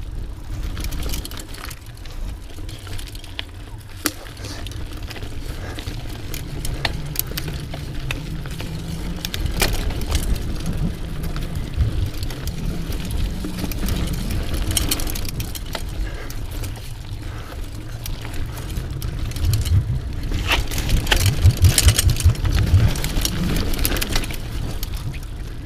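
Mountain bike rolling along a trail: a steady low rumble from the tyres and wind on the mounted camera, with scattered clicks and knocks as the bike goes over bumps. The rattling gets rougher and louder for a few seconds near the end.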